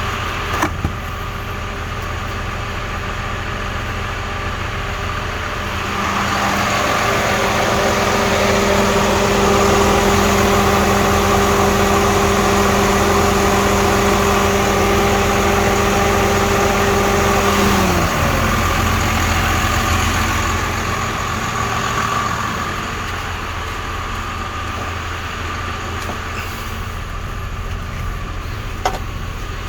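Electric transmission oil cooler fan on a Hyundai Mega Truck with an Allison automatic transmission, over the truck's idling engine. It switches on about six seconds in with a steady hum and rushing air, then cuts out and winds down in pitch past the middle. The fan is working normally on a newly replaced relay.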